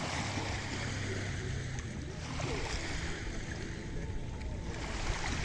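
Small sea waves breaking and washing onto the shore, the rush swelling and fading every two to three seconds.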